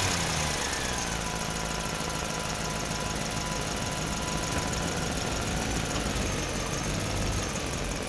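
Monster truck engine sound effect, idling steadily and cutting in abruptly.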